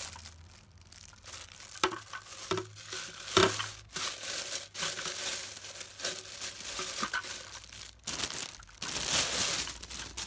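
Thin plastic packaging crinkling as it is handled, irregular and on and off, loudest near the end.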